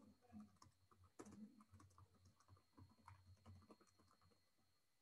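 Faint typing on a computer keyboard: quick, irregular keystrokes.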